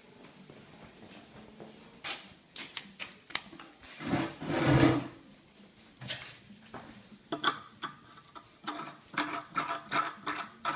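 A steel bolt being threaded by hand through a freshly tapped 1/2-13 hole: light metallic clicks and scrapes, a louder handling noise about four seconds in, and a run of quick, evenly spaced clicks in the last few seconds.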